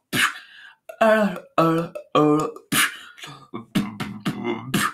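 A person beatboxing: sharp hissing snare sounds alternate with short pitched vocal hums and bass notes, a beat about every half second.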